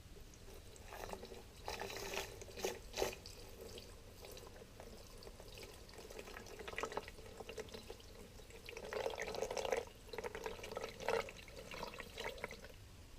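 Water being poured into a small acrylic betta aquarium, splashing in two spells: one about a second in, and a second, longer one near the end.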